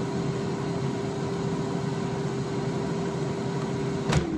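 Paula Deen 9.5-quart air fryer running, its fan making a steady whirring hum with one held tone. Near the end the basket drawer is pulled open with a click, which shuts the fryer off, and the fan's tone begins to drop as it winds down.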